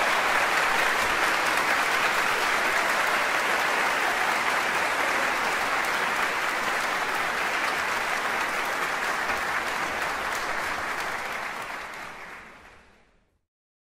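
Large audience applauding steadily, fading out near the end.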